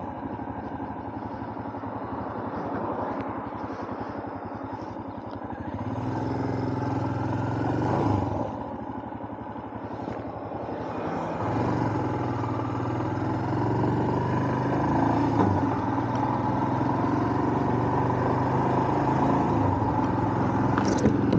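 Motorcycle engine running while riding. The engine note rises about six seconds in, dips briefly around eight seconds, and climbs again near twelve seconds.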